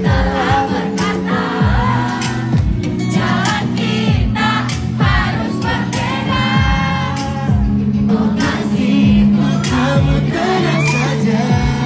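Boy band singing a pop song into hand microphones over a steady drum beat, amplified through PA speakers.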